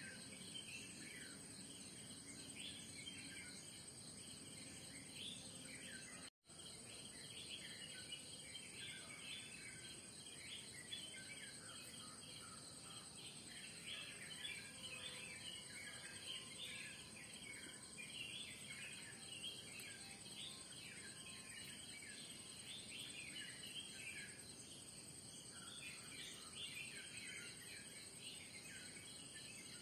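Faint morning bird chorus: many small birds chirping and twittering over a steady high-pitched insect drone. The sound drops out for an instant about six seconds in.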